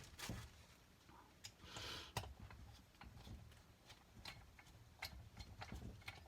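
Faint, scattered light clicks and taps of small metal parts and hand tools being handled while carburetor jets are taken out, with a brief soft rustle about two seconds in.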